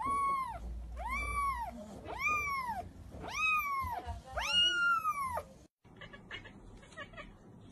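Kitten meowing five times in a row, high-pitched calls that each rise and then fall in pitch.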